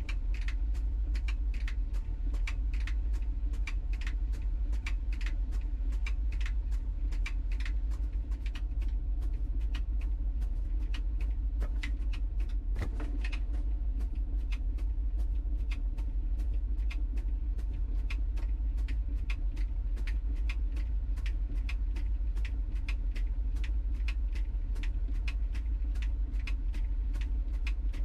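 LG TROMM WashTower clothes dryer running: a steady low hum from the turning drum, with irregular light clicks and knocks several times a second from the tumbling load.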